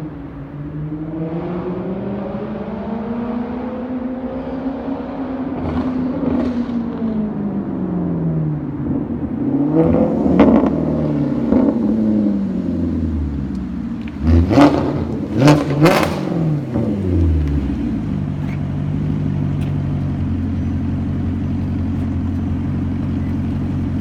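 2007 Maserati Quattroporte 4.2 V8 with a straight-through exhaust (sports cats, X-pipe, muffler delete) being revved up and down. About two-thirds of the way in come several quick, sharp throttle blips, and then it settles to a steady idle.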